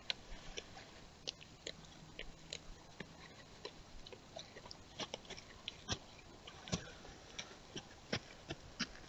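Irregular soft clicks and crunches from deer moving and feeding close to the trail camera.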